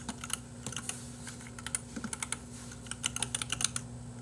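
Runs of quick, irregular light clicks, like typing on a computer keyboard, over a steady low electrical hum.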